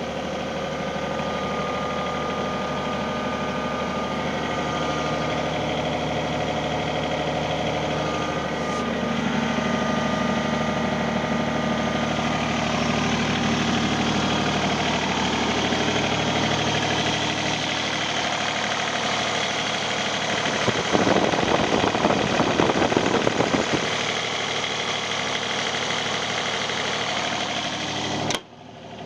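Kobelco SK28SR-6 mini excavator's diesel engine running steadily, its tones shifting now and then. About three quarters of the way in it grows louder and rougher with rapid clattering for a few seconds. The sound cuts off abruptly near the end.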